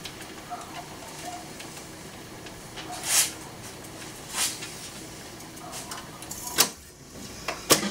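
Sony TC-350 reel-to-reel tape deck fast-winding its tape: a steady whir with a couple of short swishes. About six and a half seconds in comes a sharp clunk, and just before the end another click, as the function lever is worked and the transport is brought to a stop.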